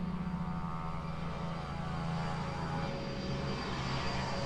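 Jet airliner on final approach to land, its engine whine growing louder as it nears. A steady low hum lies underneath.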